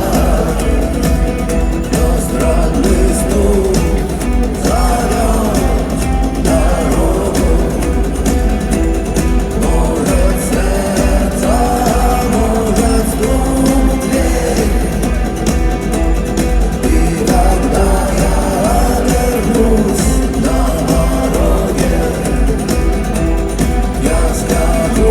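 A rock band playing live at a concert, with a sung vocal line over a steady, bass-heavy band accompaniment.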